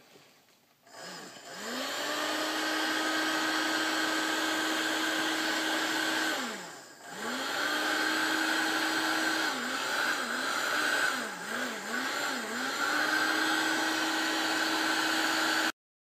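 Electric heat gun running, its fan motor spinning up to a steady pitch with a rush of blown air, as it shrinks heat-shrink tubing over a crimped butt connector. It winds down about six seconds in and spins back up, dips in speed several times a little later, then runs steady until it stops abruptly near the end.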